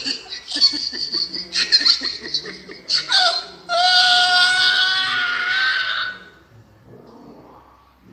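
Hard, high-pitched laughter from two men in bursts, then, about three and a half seconds in, one long shrieking laugh held for about two and a half seconds before it dies away.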